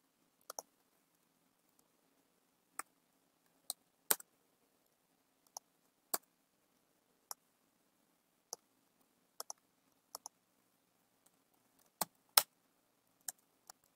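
Sparse, irregular clicks of a computer keyboard and mouse during code editing, roughly one a second with an occasional quick pair.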